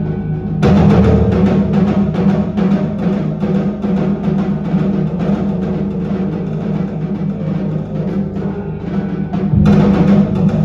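Solo percussion performance on drums: fast strokes over ringing low drum tones, with loud accents about half a second in and again near the end.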